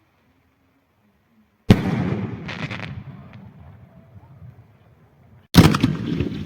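Two fireworks bursts about four seconds apart, each a sharp bang followed by a rumbling echo that dies away over a second or two. A short crackle follows the first bang.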